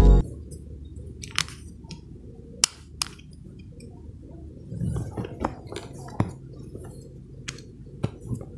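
Scattered light clicks and taps of a smartphone and its box and packaging being handled, a few seconds apart with a busier patch about halfway through, over a steady low background hum. Background music cuts off at the very start.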